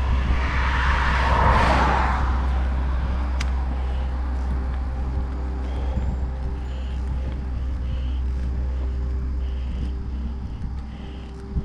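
A car passes on the highway: its tyre hiss swells and fades in the first couple of seconds, over a steady low wind rumble on the microphone of the moving bicycle.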